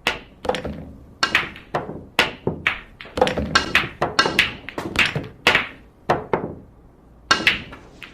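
Billiard balls knocking: a quick, irregular run of sharp clacks from cue and balls striking, two or three a second. They pause briefly about six and a half seconds in, then a few more come.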